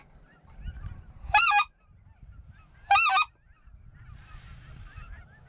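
Geese honking: two loud, high, nasal calls about a second and a half apart.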